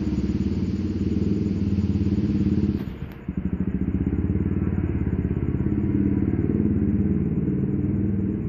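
A steady low engine rumble with a fast pulsing beat, which briefly drops about three seconds in.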